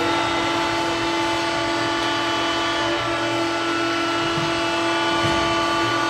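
Ice hockey goal horn sounding in long, steady blasts for a goal, with brief breaks about halfway through and near the end.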